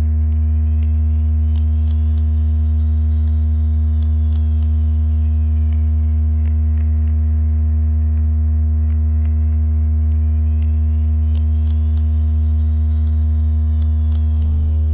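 Steady, loud low-pitched hum of a sound-effect track meant to attract fish. High above it, a faint tone slowly sweeps up and back down twice, with scattered faint clicks.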